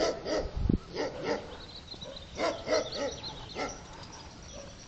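Dog barking: short barks, mostly in pairs, repeating over the first four seconds.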